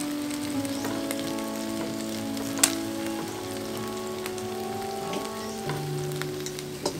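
Chicken drumsticks sizzling as they fry in a nonstick pan, turned and lifted with wooden chopsticks, with scattered clicks of the chopsticks against the pan, the sharpest about two and a half seconds in.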